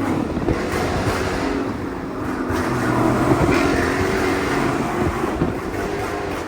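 Dodge Charger Scat Pack's 6.4-litre HEMI V8 running while the car is driven, its engine and exhaust note swelling louder about halfway through, then easing back.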